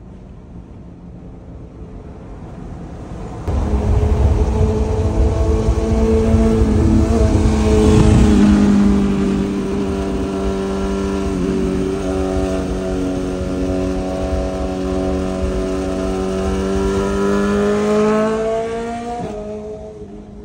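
BMW S1000RR inline-four running through an Arrow titanium full exhaust at road speed. The engine note comes in loudly and abruptly a few seconds in, swells to its loudest partway through and holds steady, then climbs in pitch near the end before dropping away.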